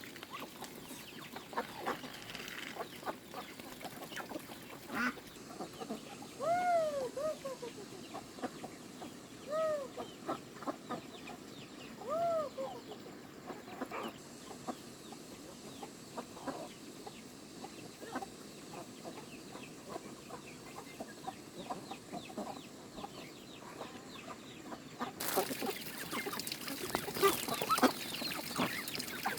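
Chickens clucking, with three louder drawn-out calls that rise and fall near the middle; a steady hiss comes in near the end.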